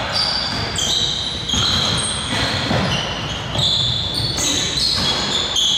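Basketball play: sneakers squeaking on the court floor, many short high squeaks overlapping one another, with a basketball bouncing.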